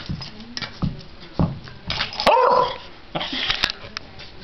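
Beagle puppy giving a bark about two seconds in, with a few short knocks before it and a scuffling noise just after.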